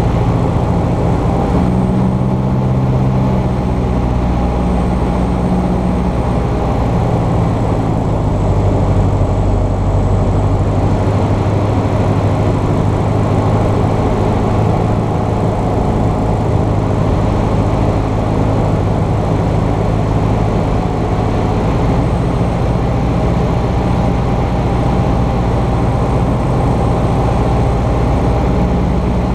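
Cessna 150's four-cylinder Continental O-200 engine and propeller droning steadily in flight, heard from inside the cockpit. The pitch shifts slightly a few times.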